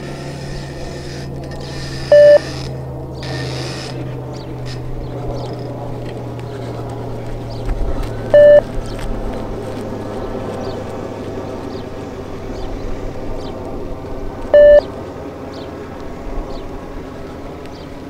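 Beep test (multi-stage shuttle run) signal beeps: three short, identical electronic beeps about six seconds apart, each marking the end of a 20 m shuttle at level 7. Under them runs a steady low background hum.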